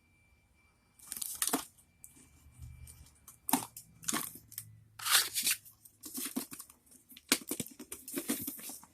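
A plastic chip bag crinkling and tearing in a series of sharp bursts as it is ripped open and handled.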